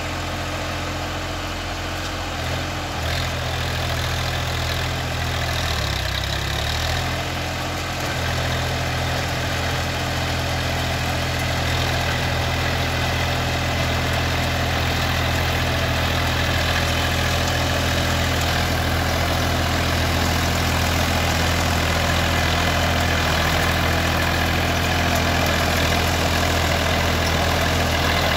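Massey Ferguson 254 DI Dynatrack tractor's diesel engine running steadily under load while pulling a rotavator at full tilling depth. The engine note wavers a few seconds in, then holds steady, and the sound grows a little louder as the tractor comes closer.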